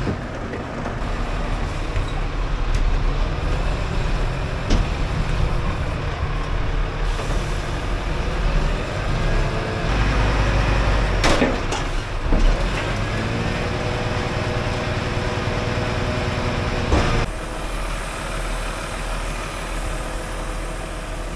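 Heavy diesel machinery running steadily, its engine note dipping and rising around the middle, with a few sharp metal clanks, as scrap steel engines are loaded onto a lorry. The sound changes suddenly near the end.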